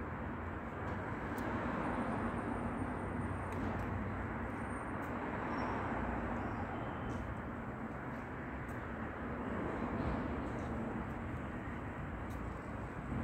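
Steady outdoor street noise: a low rumble and hiss, with a few faint clicks.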